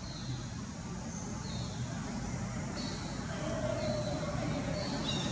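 A steady low rumble, like a distant motor, with short high chirps repeating about once a second.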